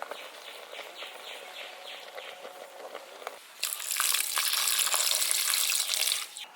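Water runs loudly for about three seconds, starting about halfway through and stopping abruptly. Before it comes a quieter stretch of faint, evenly repeated scraping strokes.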